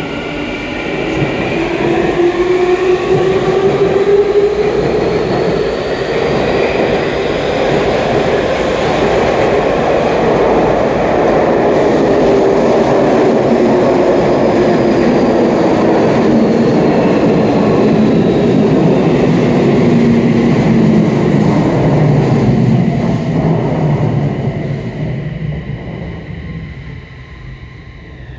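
Y500-series electric train pulling out of an underground station, its motor whine rising in pitch as it speeds up over dense wheel-on-rail rolling noise. A second train then rolls past on another track, its motor whine falling in pitch as it slows, and the noise fades away near the end.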